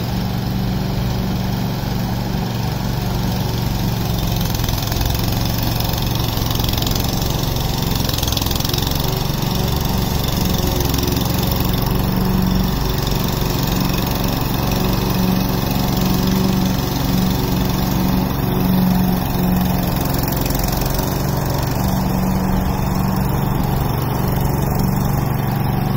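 Husqvarna LC118 petrol walk-behind lawn mower running steadily while being pushed through thick, long Taiwan grass, its engine holding an even note under load.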